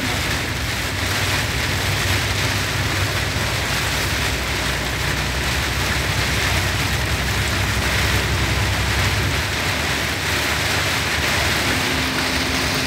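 Heavy rain falling on a truck cab's windscreen and roof, heard from inside the cab, over the steady low rumble of the moving truck and its tyres on the wet road.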